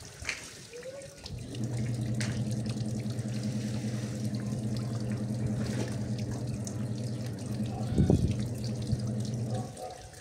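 Water splashing and dripping as a wet blanket is wrung and rinsed by hand over a washtub. A steady machine hum starts about a second in and stops near the end, and a louder wet slap comes about eight seconds in.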